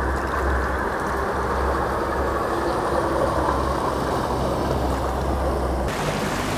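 An engine running steadily, a low even hum. The sound changes abruptly about six seconds in.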